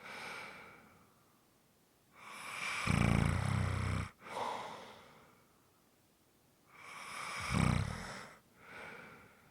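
A person snoring: two snores about four and a half seconds apart, each followed by a softer, airy breath. A breath fades out in the first second.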